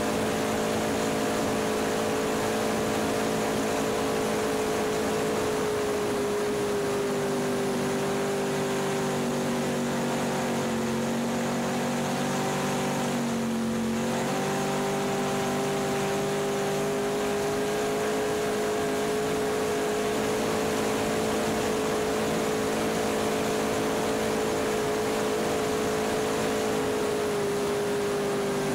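Inboard engine of a small open race boat running steadily at speed, its pitch sagging briefly about halfway through and then climbing back, dipping slightly again near the end. A constant rush of wind and water lies under it.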